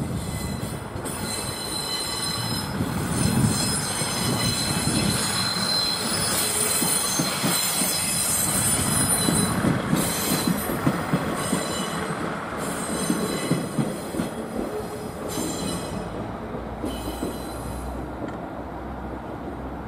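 Train rolling through the yard tracks with its wheels squealing, over a low rumble of running gear. The high squeal is strongest in the middle, and the sound eases off toward the end.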